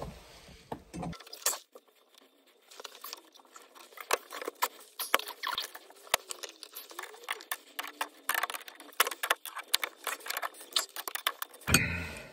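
Brass compression nuts and olives of a full-bore isolation valve clicking and scraping as they are handled and threaded onto copper pipe by hand: a long run of light metallic ticks, some in quick clusters.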